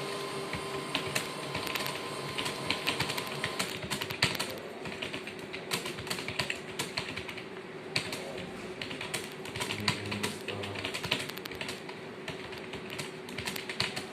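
Fast, continuous typing on a keyboard, the keys clicking in quick, irregular succession, with a steady faint hum underneath.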